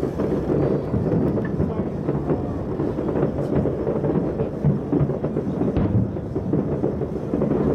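Many distant fireworks exploding at once, their booms merging into a continuous low rumble with scattered sharp pops.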